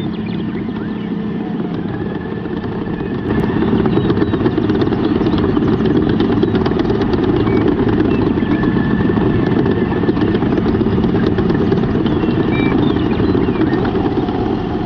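Small motor running steadily with a rapid rattle, getting louder about three seconds in.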